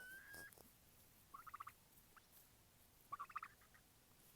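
Two faint turkey gobbles, short rapid rattling calls, about a second and a half in and again near three and a half seconds, with a thin whistle-like tone at the very start.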